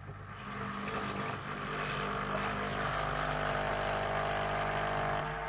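Dolce Gusto Lumio pod coffee machine's pump running steadily, pushing cold water through during its first cleaning (rinse) cycle. A steady whine joins the hum from about two seconds in until near the end.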